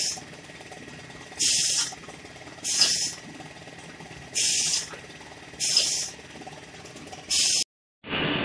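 Compressed air hissing in short half-second bursts, about one every second and a half, over a low steady machine noise: the pneumatic valves of an automatic foam die-cutting machine venting as it cycles. Near the end the sound cuts to a steady, duller machine noise.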